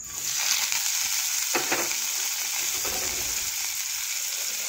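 Cut pieces of pointed gourd tipped into hot oil in a kadai, sizzling at once and frying with a steady hiss.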